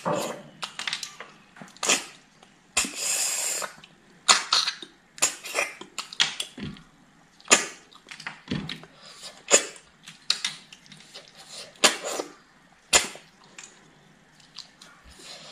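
Close-miked eating sounds: a run of short, wet mouth clicks and lip smacks as food is chewed and fingers are sucked, with a hiss lasting about a second, three seconds in.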